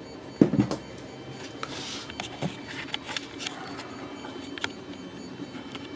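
Handling noise: a knock about half a second in, then scattered clicks and taps as the camera and tool are moved, over the steady whir of a 3D printer running in the background.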